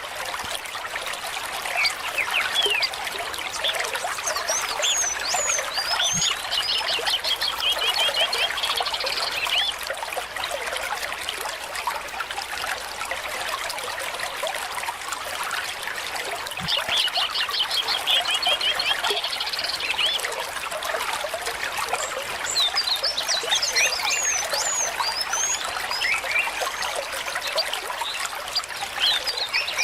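Water trickling steadily, with small birds chirping over it now and then, including a fast trill that comes twice.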